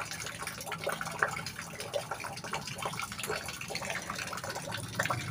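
Water splashing and dripping: a steady patter of small drops, with a low hum underneath that fades out about halfway through.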